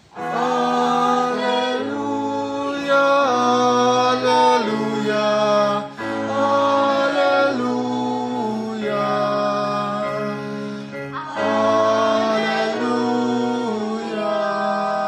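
Small choir singing a hymn for Mass with electronic keyboard accompaniment, in long held chords, with short breaks between phrases about six and eleven seconds in.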